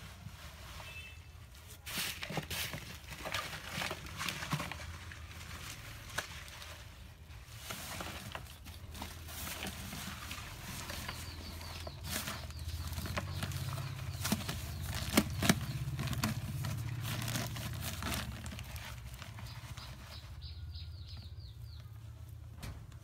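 Hands scraping and patting loose soil and handling a plastic sheet, rustling with scattered clicks and knocks over a low steady hum.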